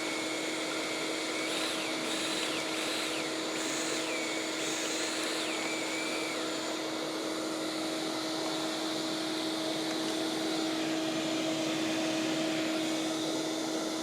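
Shop vacuum running steadily, sucking lint out of a dryer vent duct. A higher airflow whistle jumps up and down in pitch several times during the first six seconds.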